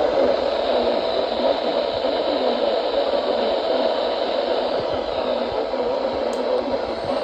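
Steady radio static hiss from a weather-radio receiver between broadcast messages.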